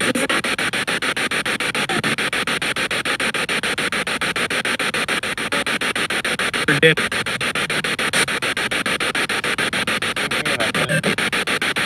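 Radio spirit box sweeping through stations, played through a portable speaker: a steady static hiss chopped into rapid even pulses. Short fragments of radio sound break through about seven seconds in and again near the end.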